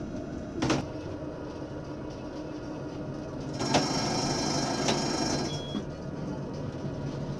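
Tram running along street track, heard from inside the driver's cab: a steady rumble with a sharp click less than a second in. About halfway it grows louder, with a high whine and two more clicks.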